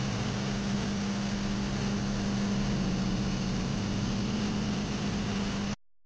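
IFB front-load washing machine running its Tub Clean descaling cycle: a steady motor hum with water churning in the turning drum. It cuts off suddenly near the end.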